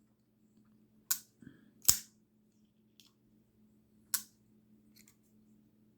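Kizer Big Lighter 2 liner-lock pocket knife being flipped open and closed by hand: a few sharp metallic clicks, the three loudest about one, two and four seconds in, with fainter ones between.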